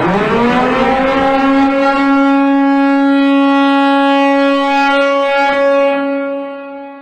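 Siren-like alarm tone of a mock emergency alert: it winds up quickly to a steady pitch, holds for about six seconds, then fades away near the end.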